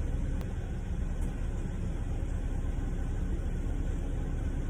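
Steady low rumble with no distinct events, and one faint click near the start.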